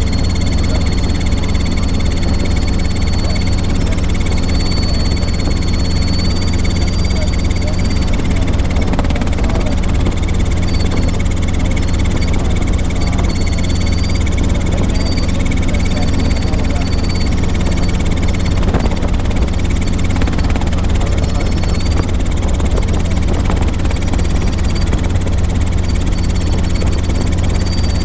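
Robinson R22 helicopter cabin noise in cruise flight: the four-cylinder Lycoming piston engine and two-bladed main rotor running steadily with a loud, deep beat. A thin high whine sits steadily above it at first, then comes and goes.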